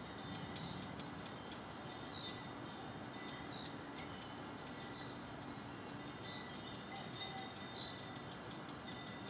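A bird repeating one short high call six times, about every second and a half, over a steady faint outdoor hiss with light ticking.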